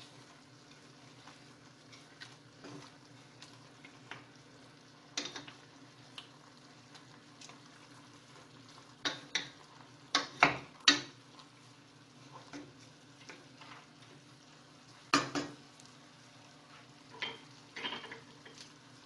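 Wooden spatula stirring and turning chicken pieces in a stainless steel saucepan, with scattered sharp knocks of the spatula against the pan, the loudest around the middle, over a faint steady hum.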